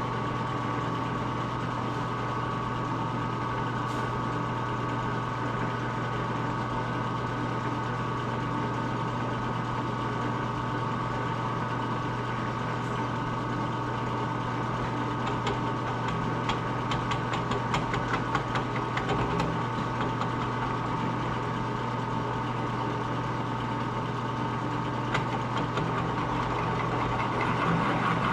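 Steady machine hum at an even level, with a run of quick light clicks about two-thirds of the way through.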